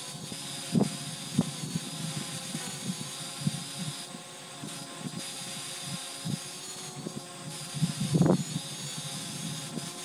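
Wind buffeting the microphone in irregular gusts, the strongest about eight seconds in, over the steady high whine of a Parrot Anafi quadcopter's propellers hovering, its pitch wavering slightly.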